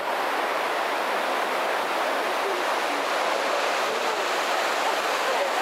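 Shō River's shallow, fast water rushing over snow-capped stones: a steady, even rushing hiss.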